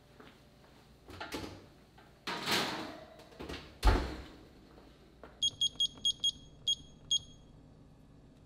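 Baking tray and oven handling noises, then an oven door shutting with a thump about four seconds in, the loudest sound. Then seven short high beeps from a digital kitchen timer's buttons as a countdown of about 15 minutes is set.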